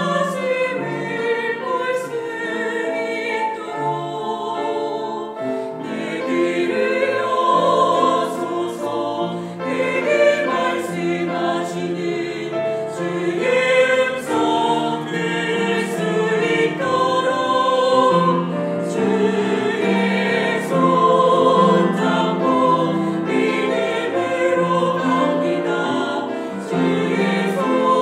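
A small mixed choir of men's and women's voices singing a Korean worship song in harmony, accompanied by piano and strings.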